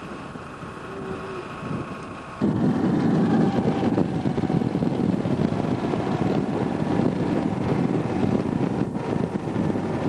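Tractor-drawn potato harvester working, its engine and machinery running with wind noise on the microphone. About two and a half seconds in the sound jumps abruptly to a much louder, steady low rumble of machinery with wind buffeting the microphone.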